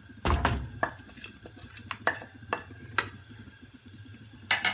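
Wooden spoon stirring a thick besan-and-ghee mixture with dry fruits in a steel pot, knocking against the pot with sharp, irregular clacks. The loudest come in a cluster about a quarter second in and again near the end.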